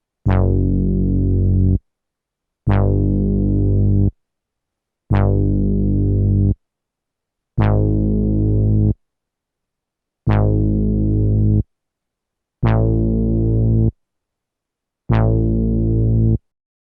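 SP-1200 12-bit sampler playing back a low, pitched keyboard-like sample seven times at different pitches. Each note opens with a bright attack that fades, holds for about a second and a half, then cuts off suddenly.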